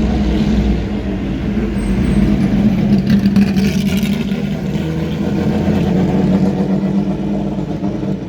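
BMW M1 Procar's straight-six racing engine running loud and steady, a little louder three to four seconds in.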